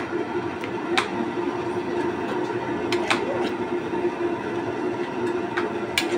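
A metal ladle clicking sharply against a large aluminium wok of bone-in gulai a few times: about a second in, about three seconds in, and near the end. Under it, a steady rumbling hum.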